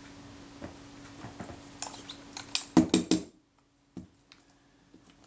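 Small metal clicks and clinks from a screwdriver and small camera parts being handled on a workbench, with a quick cluster of sharp clicks about three seconds in, over a faint steady hum.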